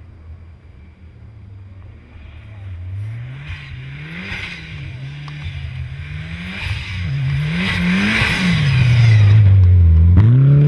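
Mitsubishi Lancer Evolution IX rally car's turbocharged four-cylinder engine approaching under hard driving, its revs rising and falling again and again through throttle lifts and gear changes. It grows steadily louder and is loudest as the car slides past close by near the end.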